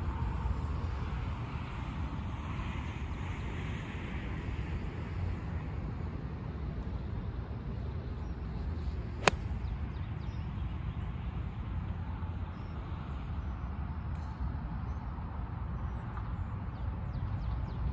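A 5-iron striking a golf ball: one sharp click about halfway through, over a steady low rumble.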